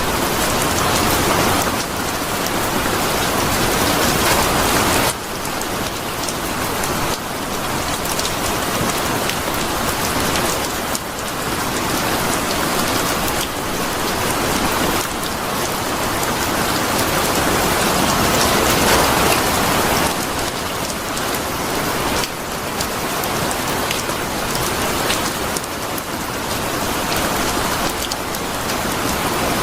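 Steady heavy rain falling, a dense even hiss, with the level dropping abruptly a few times.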